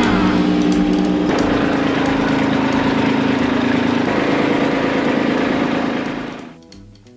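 A Kubota LX2610 compact tractor's three-cylinder diesel engine runs steadily while the tractor drives into the garage. The sound fades away about a second before the end.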